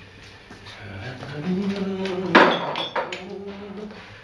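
Crockery and cutlery clinking as breakfast things are handled, with one sharp, loud clink about two and a half seconds in and a few lighter ones after it. Underneath, a man hums low, steady notes.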